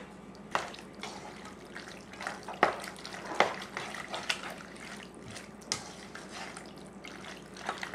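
Wet squelching of sauce-coated ziti being spooned and stirred in a large metal pot, with scattered taps and scrapes of the spoon and spatula against the pot.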